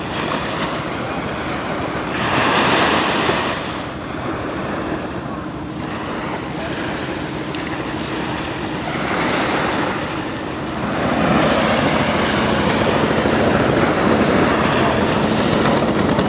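Small waves breaking and washing up a sandy beach in repeated swells, growing louder in the last few seconds, with wind buffeting the microphone.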